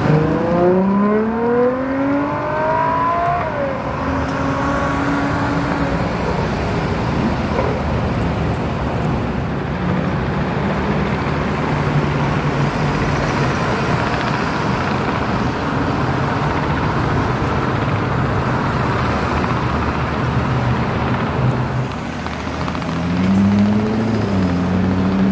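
Sports cars accelerating away one after another. A Ferrari 812's V12 climbs in pitch over the first few seconds and changes up a gear about 3.5 s in. A rougher, steadier engine and road noise follows as a Porsche Boxster goes by, and near the end a Chevrolet Corvette C6's V8 revs up as it pulls away.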